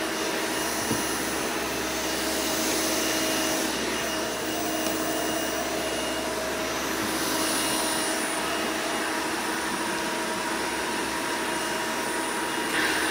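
Hoover Elite 200 upright vacuum's 5-amp direct-air motor running steadily, a constant rush of air with a steady whine, while the attachment converter is fitted for tool use.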